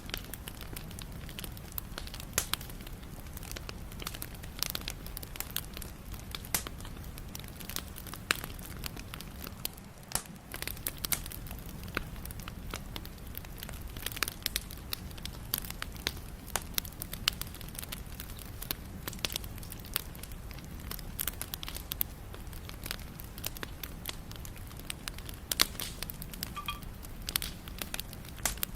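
Wood fire burning steadily, with a low rumble under frequent irregular crackles and sharp pops.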